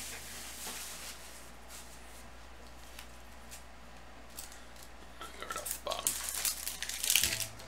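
Sports-card pack wrapper handled, then torn open and crinkled, in a run of loud irregular crackling in the second half.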